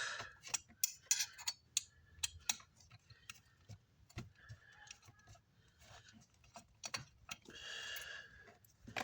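Scattered small clicks and taps of hand tools and small plastic and metal parts while the crossover switch buttons are worked off a car amplifier's front panel. A brief rasping sound comes about a second before the end.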